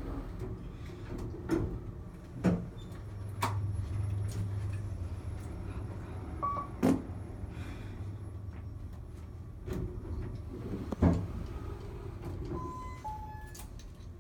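Elevator car moving with a low steady hum, several sharp clicks and knocks, and a few short electronic beeps near the end.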